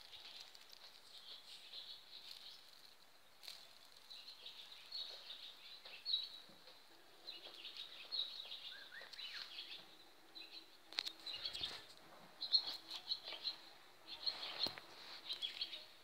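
Faint dawn chorus of small birds, many quick chirps and twitters overlapping, with a few gliding notes. Several sharp knocks from the phone being handled.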